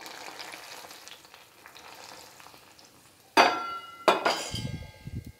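Thick sweet pongal of rice, dal and jaggery bubbling and sizzling in a pot as ghee is poured in. About three seconds in, a metal utensil knocks twice against the pot with a ringing tone, followed by stirring.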